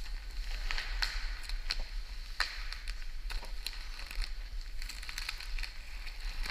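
White protective wrap on a new car crackling and rustling as it is peeled by hand off the roof. The sound is a run of irregular, crisp crackles.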